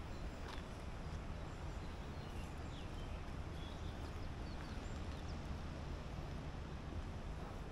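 Outdoor woodland ambience: a few faint, short bird chirps over a steady low rumble, with a few soft clicks.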